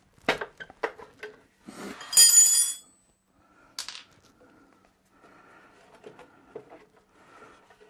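Wrench and metal fittings on an oil burner's fuel line knocking and clinking as they are worked: a few sharp knocks, then a loud ringing metallic clink about two seconds in, another click near four seconds, and quieter handling after.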